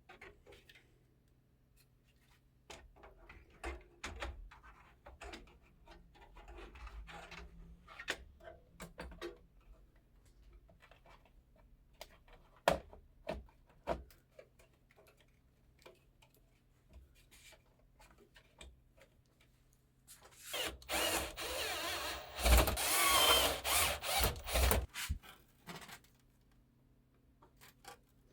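Computer parts being handled and fitted together: scattered light clicks and knocks, then a louder rough rubbing and scraping for about four seconds past the middle.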